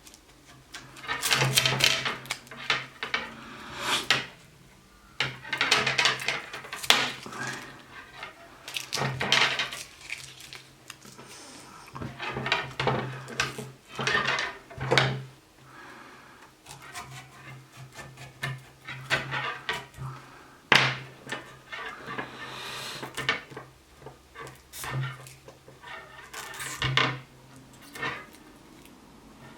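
Handwork on the sweatpants' waistband, draw cord and cut-off coat hanger: irregular rustling, scraping and small clicks and clinks in clusters a second or two long, over a steady low hum.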